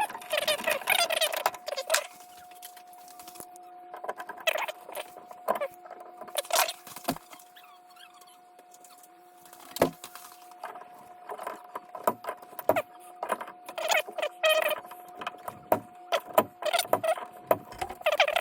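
Tools and small metal parts clicking and clattering while a furnace's draft-inducer blower motor is unscrewed and taken apart, in irregular bursts with a quieter spell in the middle. A faint steady hum runs underneath.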